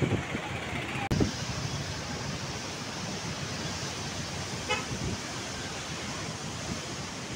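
Steady rush of river floodwater pouring through a barrage, with wind buffeting the microphone hard in the first second. A brief beep sounds about five seconds in.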